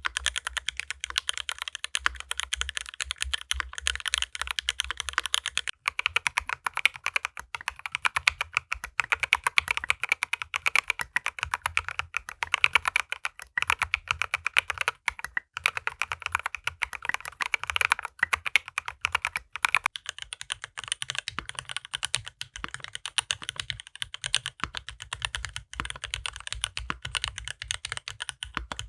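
Fast, continuous typing on a Dolinger RE mechanical keyboard fitted with OP Black switches, their housing tops lubed with grease: a dense run of keystroke clacks. The tone of the clacks shifts about six seconds in and again about twenty seconds in.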